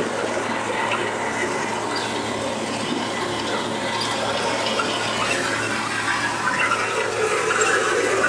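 Steady rush of wind and road noise at the open cab window of a moving 1941 Chevrolet G7113 truck, with its straight-six petrol engine running underneath.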